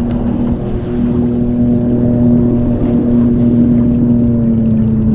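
Boat motor running steadily, a low hum with a rumble of water and wind underneath.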